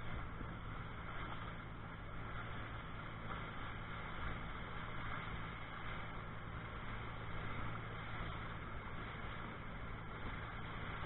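Fishing boat's engine running steadily underway, a constant low drone with the hiss of water rushing past the hull and wind.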